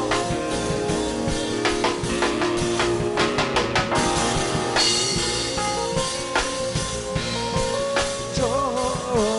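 Live worship band music: a drum kit keeps a beat under sustained keyboard chords, with a quick run of drum hits about three and a half seconds in.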